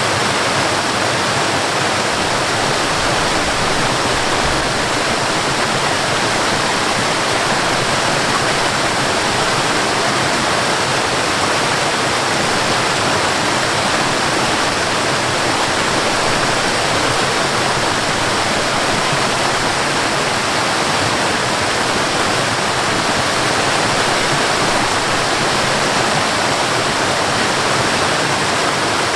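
Waterfall: water falling from a height and splashing, a steady, unbroken rush.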